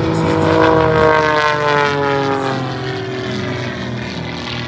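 Propeller airplane flying past. Its engine note drops in pitch as it goes by, loudest about a second in, then fading.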